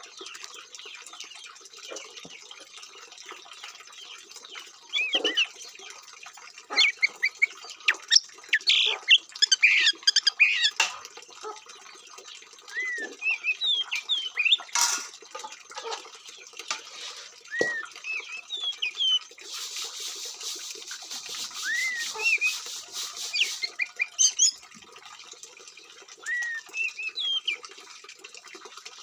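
Oriental magpie-robin (kacer) singing a varied song of short whistles, chirps and squawky notes, with a rapid buzzy rattle lasting a few seconds past the middle. A sharp click is heard about halfway through.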